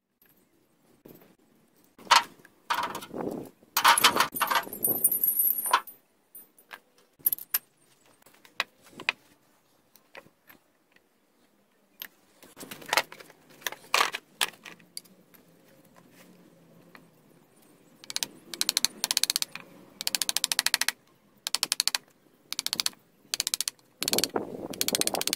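Iron railroad spikes clinking and rattling against each other in short irregular bursts. Near the end a wooden mallet starts striking a chisel into the old timber.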